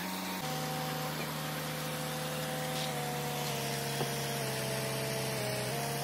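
Flatbed tow truck's engine running at a steady speed to power the hydraulic bed as it moves the loaded car. It gives a steady hum that drops slightly in pitch in small steps a few times.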